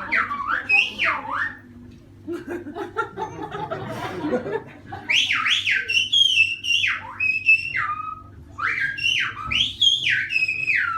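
Silbo Gomero whistled speech: loud whistles gliding up and down in pitch in quick phrases, the whistled form of spoken Spanish. About two to five seconds in the whistling pauses and only low audience murmur is heard.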